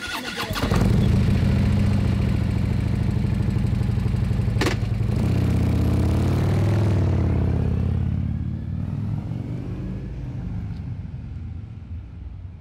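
Motorcycle engine running, with a sharp clunk about halfway through, then revving as it pulls away and fading off into the distance.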